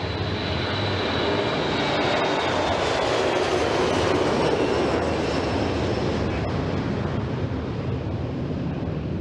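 Boeing 737 jet engines at takeoff power as the airliner lifts off and climbs past: a steady roar that swells to its loudest about four seconds in and then slowly fades, with a high whine gliding slightly downward.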